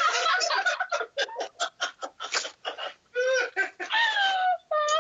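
A woman laughing hard: a rapid string of short bursts of laughter, then long high-pitched squealing cries that fall in pitch, about three in the last two seconds.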